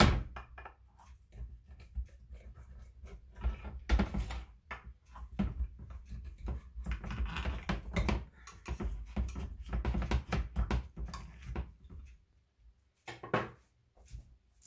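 Knife cutting through a baked egg casserole in a baking dish, the blade knocking and scraping against the bottom and sides of the dish in irregular clicks and taps.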